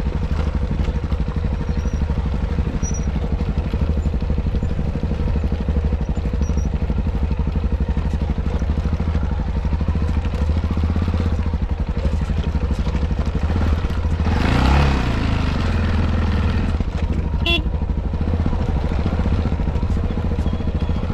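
Yamaha XT660Z Ténéré's single-cylinder four-stroke engine running steadily as the motorcycle rides, with a louder rush about two-thirds of the way through.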